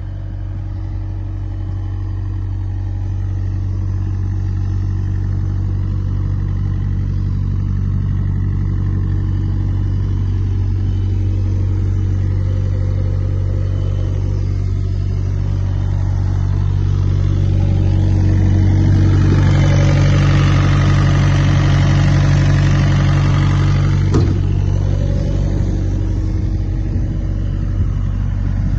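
Towable diesel site air compressor running steadily with a low engine hum. From about 19 to 24 seconds it gets louder, with more hiss over the hum, before settling back.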